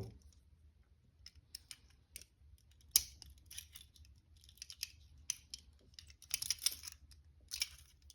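Small metal clicks and scrapes of a lock pick working inside a handcuff lock, irregular and quiet, with one sharper click about three seconds in.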